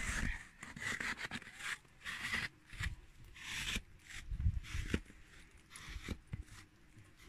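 Snow being pushed off solar panels with a hand scraper: about four rough scraping strokes roughly a second apart, then a few low thumps in the second half.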